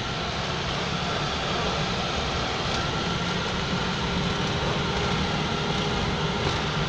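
Steady drone of a road vehicle's engine and tyres, heard from inside the cabin as it drives along a mountain road.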